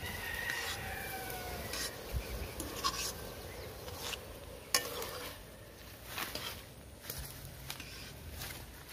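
Steel spoon stirring liquid in an aluminium kadai, clinking and scraping against the pan several times.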